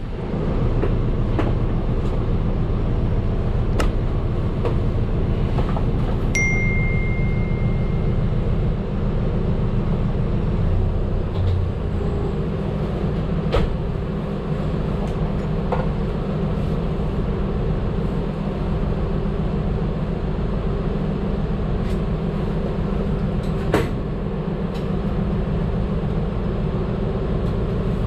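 Medium bus's engine and drivetrain rumbling steadily inside the cabin while driving, with scattered rattles and clicks. A short single-tone beep sounds about six seconds in.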